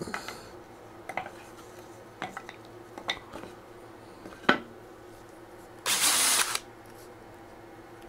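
DeWalt cordless drill having a 1/8 inch bit fitted and tightened in its keyless chuck: a few light clicks and taps, then a short harsh burst lasting under a second, about six seconds in.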